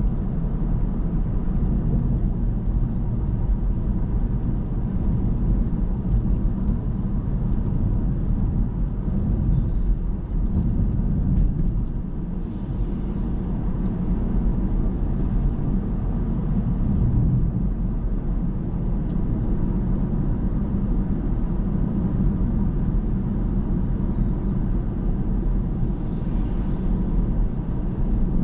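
Car driving along a road: a steady low rumble of engine and tyre noise, with faint brief hisses about halfway through and near the end.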